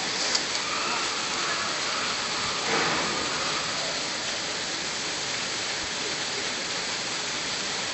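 Steady rushing noise like running water, with a brief louder sound about three seconds in.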